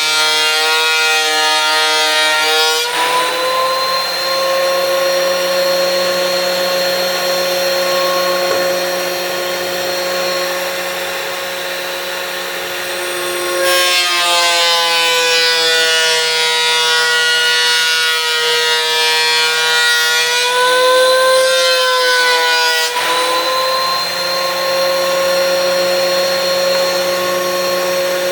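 DeWalt thickness planer running with a steady motor whine while it planes a hard, old, finished stair tread. The pitch sags for the first few seconds and again for most of the middle as the motor labours under the cut, and rises back when the board clears the knives.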